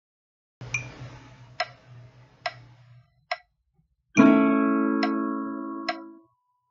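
Metronome ticking steadily, about 70 beats a minute. About four seconds in, an acoustic guitar strums a single chord on the beat and lets it ring for about two seconds.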